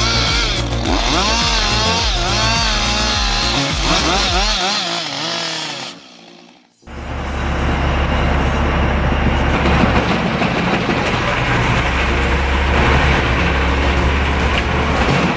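A chainsaw running and cutting, its pitch rising and falling as it bogs under load and revs back up. About six seconds in it cuts out for a moment, and a heavier machine takes over with a steady deep rumble.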